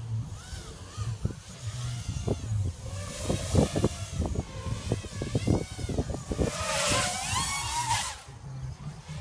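Racerstar 2205 brushless motors and 5-inch props of a ZMR250 FPV racing quadcopter whining in flight, the pitch rising and falling with the throttle, over a low rumble. The whine is loudest about seven to eight seconds in, as the quad passes close by.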